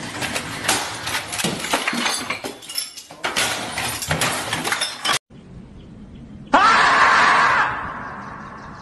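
Rapid banging, clattering and breaking as a computer and desk clutter are smashed with a stick, stopping suddenly about five seconds in. About a second and a half later a marmot gives one loud scream that rises in pitch, holds, then fades away.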